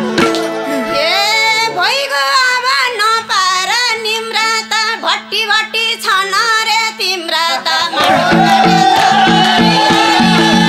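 A woman sings a long, ornamented solo phrase in Nepali folk style over a held low note, the drums silent. About eight seconds in, the madal drums and the band come back in with a steady dohori rhythm.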